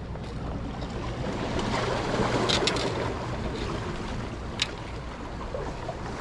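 Wind and surf noise at the shoreline, over a steady low hum, with two short sharp clicks partway through.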